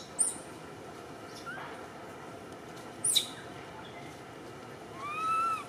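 Baby macaque crying: two short, shrill squeaks, one just after the start and one about three seconds in, then a long arching whimper near the end. These are the distress calls of an infant left alone by its mother.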